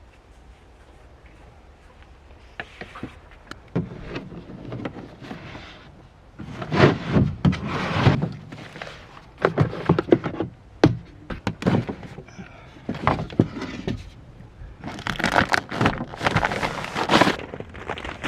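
Irregular knocks, thunks and scraping of things being handled and moved, starting a couple of seconds in, with louder clusters of knocks and rustling scrapes later on.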